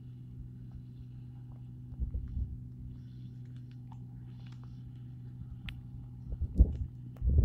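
New Holland 8070 combine harvester running steadily while cutting rice, heard as a distant even engine drone. Low rumbles of wind on the microphone come about two seconds in and again near the end.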